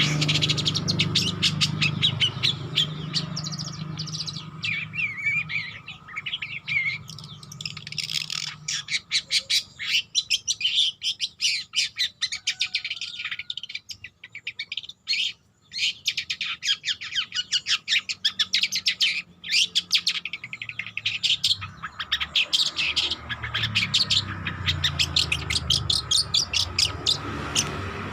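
Young long-tailed shrike (cendet) singing a long, rapid run of short chattering and chirping notes, a juvenile still practising its song. A low hum runs underneath at the start and again near the end.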